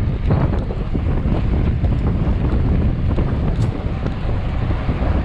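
Wind buffeting a handlebar-mounted action camera's microphone on a mountain bike ridden at race pace over paving stones, with a steady stream of small rattles and knocks from the bike.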